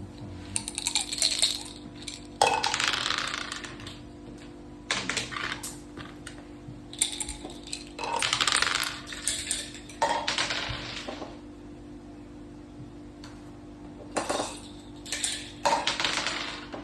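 Backgammon dice and checkers clattering on the board in a run of short rattling bursts, about seven in all, over a steady hum.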